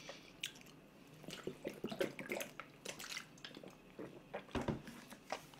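A person drinking from a plastic bottle: quiet gulps and swallows with small wet, liquid sounds. A single low thump about four and a half seconds in.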